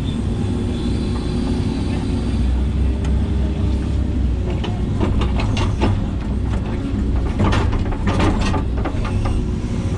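Hitachi 130LCN excavator's diesel engine running steadily at working revs, with a cluster of clanks and scrapes from about halfway in as the machine digs.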